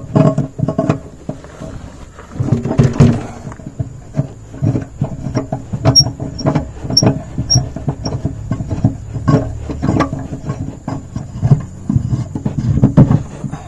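Car jack and wheel tools being stowed and wound tight in their holder: uneven metal clicks, knocks and rattles, with a few short high squeaks around the middle.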